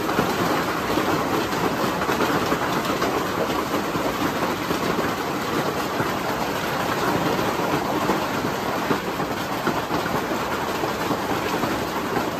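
Hailstorm: hailstones pelting down hard and clattering on hard surfaces in a dense, steady rattle of countless impacts.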